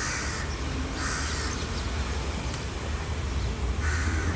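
Crow cawing three times, short harsh caws at the start, about a second in and near the end, over a steady low rumble.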